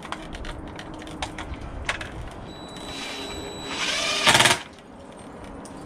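Cordless drill driving a screw up through the base of a vinyl railing leg: light clicks at first, then about two seconds of motor whine that grows louder and stops suddenly.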